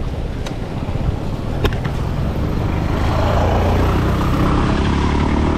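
A motor vehicle's engine running close by on the road, growing louder about three seconds in, over road and wind noise. Two sharp clicks come in the first two seconds.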